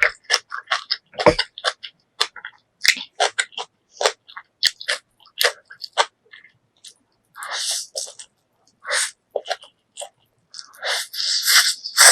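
Close-miked eating of kimchi and spicy ramen noodles: wet chewing with many short, crisp crunching clicks. Twice there is a longer slurp, about seven seconds in and again near the end.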